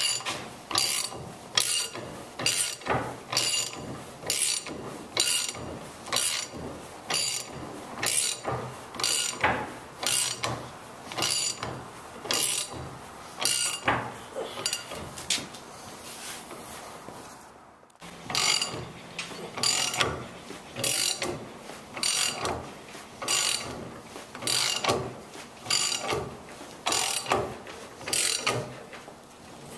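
Socket ratchet clicking in a steady rhythm of short bursts, roughly three every two seconds, as it turns the screw of a C-frame ball joint press. It is the new lower ball joint being pressed into the truck's steering knuckle. There is a short break about two-thirds of the way through.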